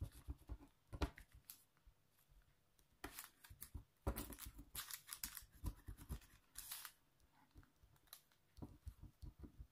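Faint, irregular clicks and short scratching strokes of a plastic diamond-painting drill pen tapping and nudging drills on the canvas, pressing them back into place.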